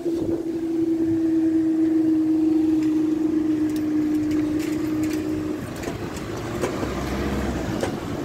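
Level crossing barrier lifting mechanism running with a steady hum as the barrier booms rise, stopping suddenly about five and a half seconds in. Road traffic then moves off, with a low rumble near the end.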